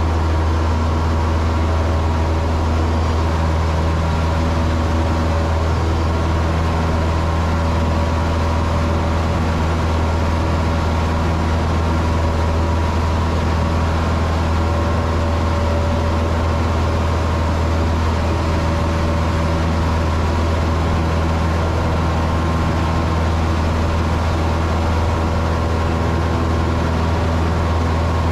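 Cessna 162 Skycatcher's Continental O-200 four-cylinder engine and propeller at full takeoff power, a loud steady drone heard from inside the small cabin through the takeoff roll and climb-out.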